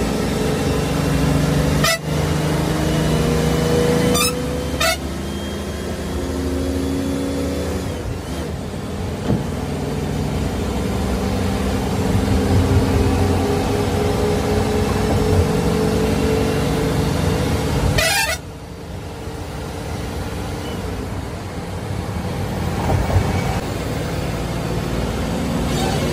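Bus horns honking repeatedly in long held blasts over the steady running of the bus engine and road noise, heard from inside the driver's cab at speed.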